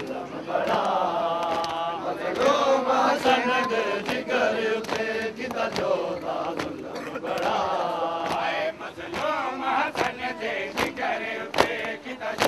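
Crowd of male mourners chanting together, a group lament recited in unison, with short sharp hits scattered through it. The chanting thins out after about nine seconds.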